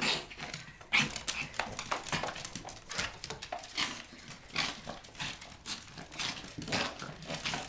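A Yorkshire terrier scuffling with a broom on a hardwood floor: irregular brushing and scraping strokes of the broom head against the floor, mixed with the dog's claws skittering, and small dog sounds now and then.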